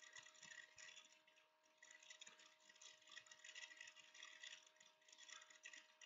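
Near silence: faint, irregular scratching and tapping of a stylus writing on a tablet screen, over a faint steady electrical hum.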